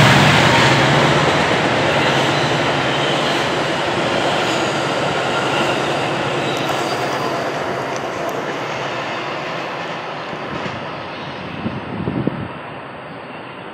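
Metra commuter train's bilevel passenger cars rumbling past on the rails below, the noise fading steadily as the train moves away down the line.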